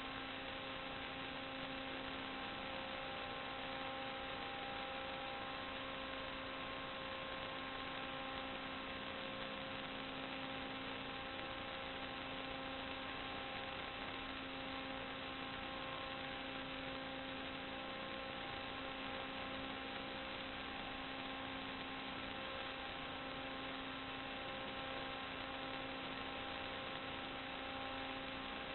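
Steady electrical hum over an even hiss, a buzz of several fixed tones that never changes in pitch or level. It is the empty audio track of an analogue FPV video recording; no motor sound rises or falls in it.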